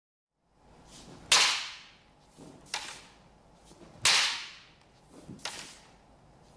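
Bamboo kendo shinai striking one another as one blade knocks the other aside: two loud, sharp cracks about three seconds apart, with lighter knocks between and after.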